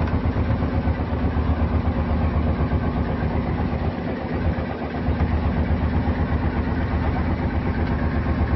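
Fishing boat's engine running steadily with a fast low throb, easing briefly about four seconds in.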